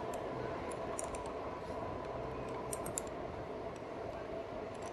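Riding sounds of a Rad Power RadMini electric bike rolling on a paved path: a steady faint hum with irregular light clicks and ticks, likely from the bike and its handlebar-mounted gear.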